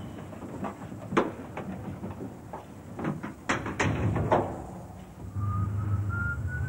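A run of irregular knocks and clatter, loudest about a second in and again just before the four-second mark. Then, over five seconds in, music begins: a steady low drone with a thin, wavering high melody above it.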